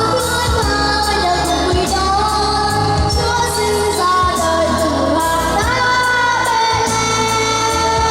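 A song sung by a singer over backing music with a steady beat and bass.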